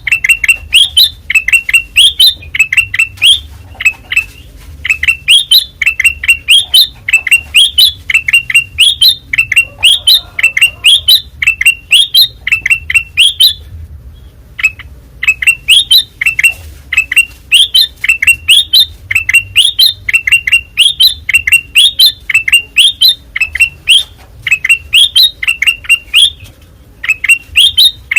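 Kutilang emas bulbul singing loudly: clear whistled notes in quick repeated phrases, with a short pause just past halfway.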